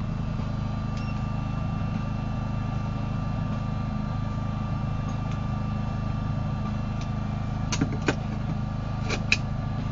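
Clicks from a Fujikura CT-20 fiber optic cleaver being worked to score and break a single-mode fiber: two pairs of sharp clicks near the end. A steady low mechanical hum runs underneath throughout.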